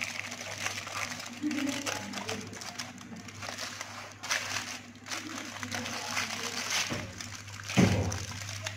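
Aluminium foil crinkling and rustling as hands fold and wrap it, over a steady low hum, with one dull thump near the end.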